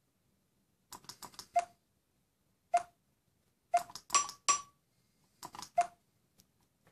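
A large button accessibility switch being pressed: a dozen or so sharp clicks in irregular groups, a quick run about a second in and then single clicks and pairs, several with a brief ringing note.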